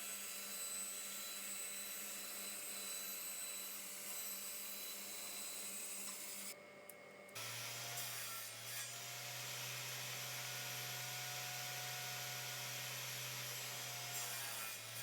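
A woodworking power tool running steadily as it works wood, in two takes with a change in the motor tone about seven seconds in. It cuts off abruptly at the end.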